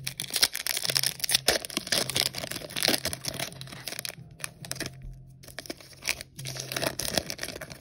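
Foil wrapper of a Pokémon trading-card booster pack being torn open by hand and crinkled as it is worked apart, with dense crackling in the first few seconds that thins out later.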